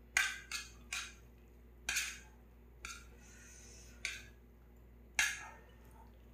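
Metal chopsticks clinking and scraping against a metal pot lid as noodles are served onto it: about seven sharp clinks, irregularly spaced.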